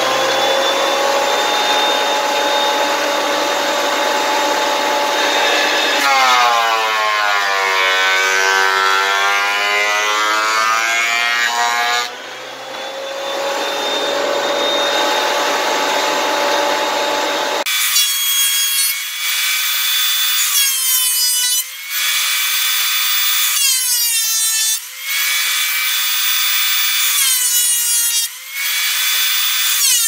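Benchtop thickness planer running with a steady motor whine as a wooden board is fed through. The pitch sags and recovers several times as the cutterhead takes the cut, with short dips between passes.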